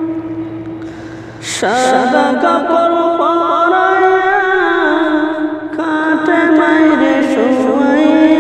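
Wordless vocal interlude of a Bengali Islamic gojol: a held, chant-like humming drone that fades about a second in, then voices sliding up into a new melodic phrase over a steady low hum.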